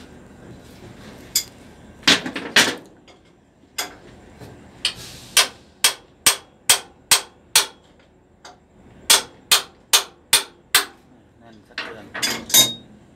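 A hammer striking metal on an engine in a series of sharp taps, some in quick clusters and some evenly spaced at about two blows a second.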